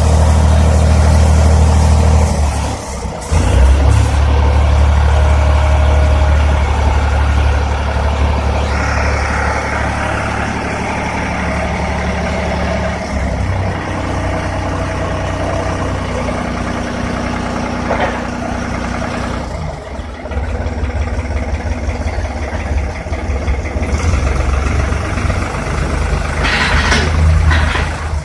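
New Holland 3630 tractor's diesel engine running steadily while it drives the hydraulics raising a mounted pole-lifting boom. Its note dips briefly about three seconds in and shifts a few times later on.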